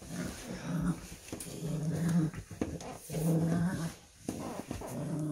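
Small dog growling in about four short, low growls about a second apart while it mouths at a pair of sneakers, which the owner puts down to jealousy.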